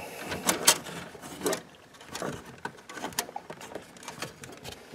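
Copper ground wire being pushed into the ground bus bar of a breaker panel and its terminal screw tightened down: a run of irregular metal clicks and scrapes, the sharpest in the first second and a half, smaller ones after.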